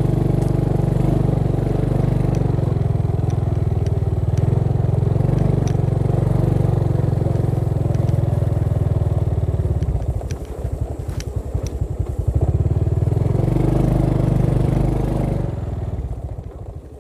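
Motorcycle engine running while the bike is ridden along a dirt track, with a few light clicks. The engine eases off to a slower putter about ten seconds in, picks up again, then slows once more near the end.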